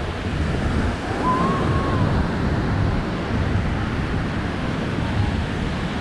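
Wind buffeting the microphone over the steady wash of ocean surf on the beach.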